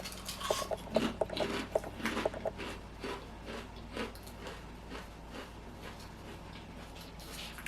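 Crinkling and rustling of a bag of Jerk Barbecue potato chips being opened and handled: dense crackles for the first few seconds, then sparser ones.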